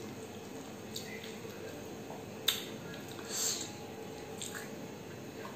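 Mouth sounds of eating rice by hand: licking fingers and chewing. There is a sharp smack about two and a half seconds in and a softer, longer one just after.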